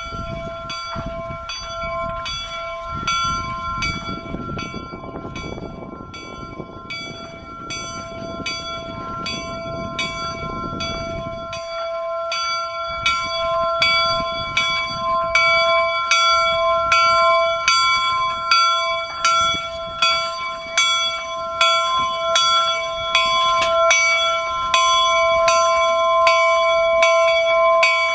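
A replica steam locomotive's bell rings in a steady rhythm of strokes and grows louder. A low rumble from the train runs underneath and stops about eleven seconds in.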